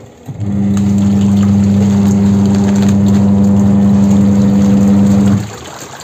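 Mika twin tub washing machine's wash motor running, turning the pulsator to mix washing powder into the wash water. A steady electric hum that starts just after the beginning and cuts off suddenly about five seconds later.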